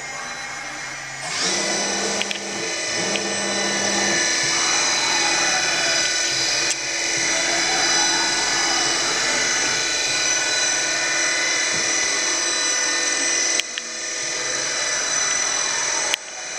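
Spindle of a Makino KE55 CNC vertical toolroom mill running at speed: a steady, high machine whine made of several tones. It starts about a second in, dips briefly, then cuts off with a click near the end.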